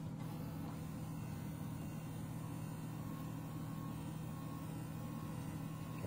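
Steady low hum in the freezer of an LG refrigerator while its twist-tray ice maker runs a cycle after a manual reset.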